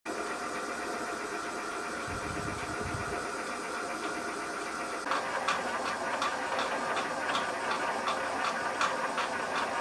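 Myford Super 7 lathe running: a steady mechanical whine from motor and gearing, joined about halfway through by a regular ticking of roughly three to four beats a second.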